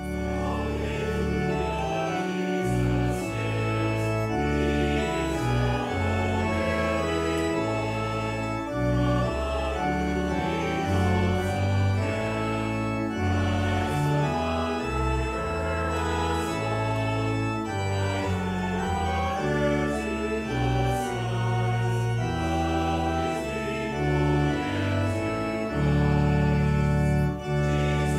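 Church organ playing a hymn in sustained, changing chords, with the congregation singing along.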